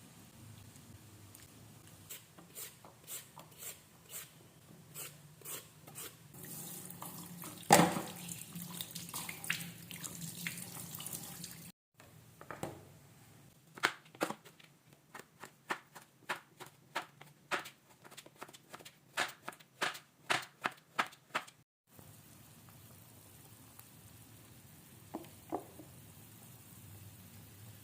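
Kitchen work sounds. First come light taps, then a stretch of running water from a tap with one loud clatter. Then comes a run of sharp, regular knocks, about two a second, and finally a faint knock or two.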